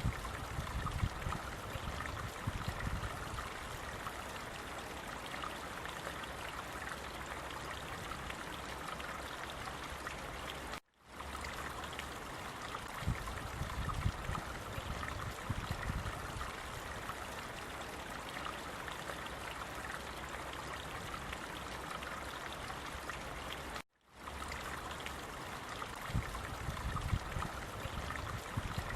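Running water rushing steadily, with a low rumble swelling three times. The sound cuts out for a moment twice, about a third and four fifths of the way through.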